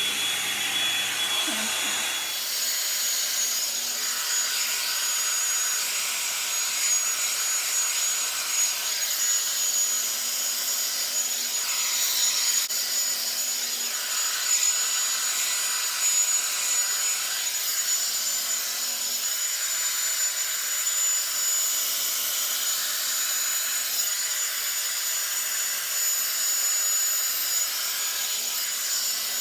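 Revlon One-Step hair dryer brush running steadily, its fan blowing with a rush of air and a thin high whine over it. The sound is loud, in the owner's words "a lot of noise."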